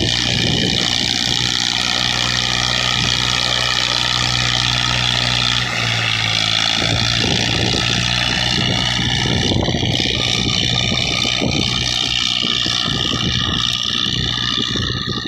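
Massey Ferguson 240 tractor's three-cylinder diesel engine running steadily under load as it pulls a disc harrow through the soil.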